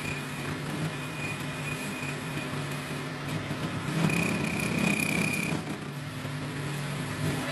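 A machine running steadily with a low hum, joined now and then by a thin high whine, loudest about four seconds in.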